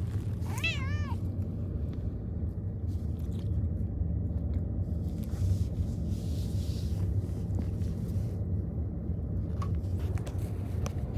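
A Munchkin cat meows once about half a second in, a short call that rises and falls in pitch, over a steady low hum.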